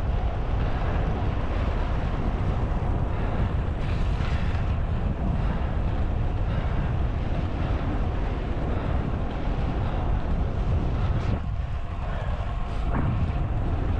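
Wind rushing over the microphone of a camera riding along on a road bike at speed: a steady, heavy low rumble.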